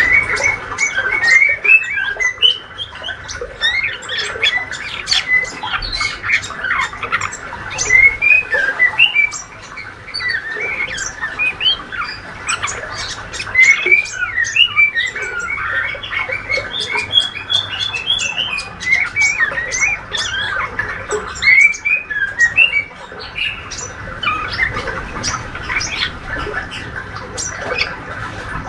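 Juvenile male white-rumped shama, still in its spotted 'trotol' stage, giving its subsong ('ngriwik'): a steady rambling run of short chirps, twitters and quick little rising and falling notes, soft and not yet clear. It is the practice song of a young bird learning to sing.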